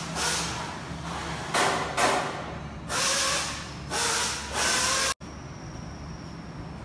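Compressed air hissing in short bursts, about six in five seconds, at a scooter's fat front tyre. The bursts stop abruptly just past five seconds, leaving a steady workshop hum.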